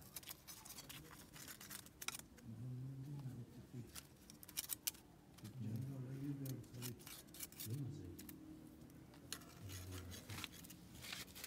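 A person's low voice murmuring softly four times in short sounds of about a second each, among scattered small clicks and rustles.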